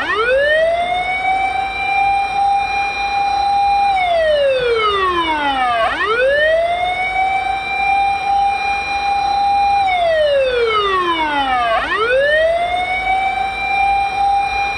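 Fire engine siren wailing: each cycle climbs quickly to a held high note for about four seconds, then slides down over about two seconds, repeating roughly every six seconds, loud and close.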